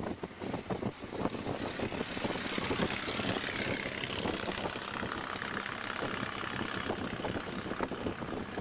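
Cars running at highway speed, a Model T Ford close by: a rapid engine beat under wind and road rush, which swells to its loudest about three seconds in as the car runs close.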